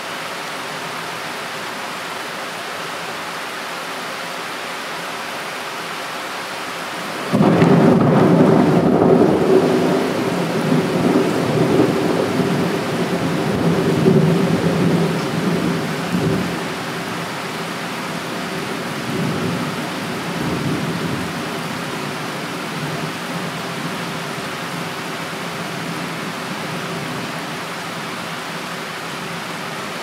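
Typhoon downpour falling steadily. About seven seconds in, thunder breaks in suddenly and rolls on as a rumble for about ten seconds, then dies away with a few weaker swells.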